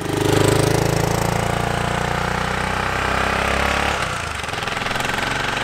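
BSA Gold Star 650's single-cylinder engine running as the motorcycle rides away along a lane, loudest at the start; the engine note changes about four seconds in.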